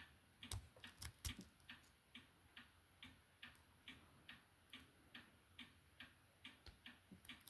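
Faint, regular clicking, a little over two clicks a second, of a lock pick being rocked in an Ace padlock's keyway against the pins.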